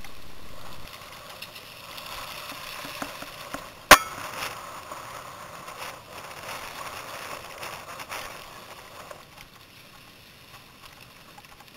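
Mountain bikes rolling over a dirt and gravel trail: tyres crunching with scattered small clicks and rattles, one sharp knock about four seconds in, and quieter near the end.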